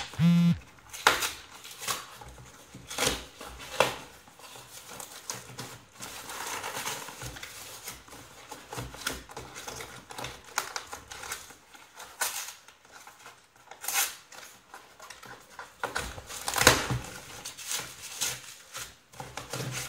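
A small cardboard shipping box handled and opened by hand: irregular knocks, taps and scrapes of cardboard, with rustling as the flaps open onto bubble-wrap packing.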